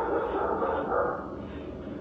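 A dog barking inside the house, heard through a doorbell camera's microphone, which sounds thin and cut off in the highs.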